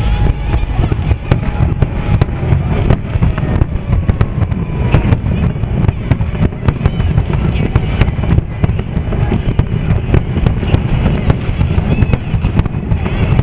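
Aerial fireworks shells bursting one after another in a dense run of bangs and crackles, with music from the show playing underneath.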